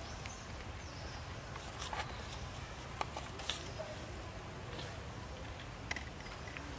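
A few sharp clicks or snaps, about a second apart at first and then one more near the end, over a steady low rumble.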